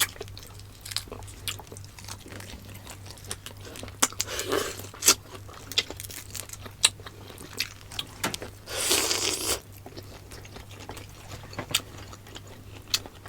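Close-miked mouth sounds of a person eating: wet chewing and biting with many small sharp clicks and crunches. A longer hiss of about a second comes about nine seconds in.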